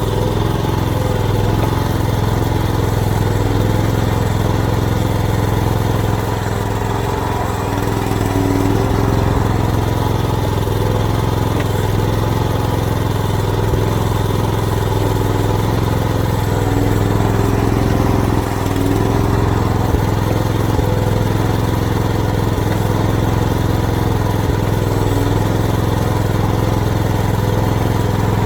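Small engine of an AGT mini excavator running steadily at working speed, its note dipping briefly a couple of times.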